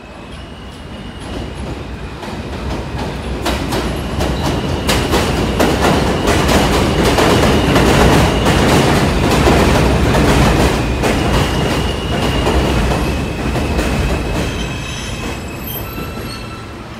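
An R160 subway train coming into an elevated station on its steel structure. The rumble and wheel noise build to a peak about eight to ten seconds in, then ease off. Rapid clicking of the wheels over rail joints and a thin high whine run over the rumble.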